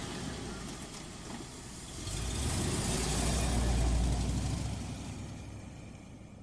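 Car engine running just after start-up; it grows louder about two seconds in as the car pulls away, then fades steadily into the distance.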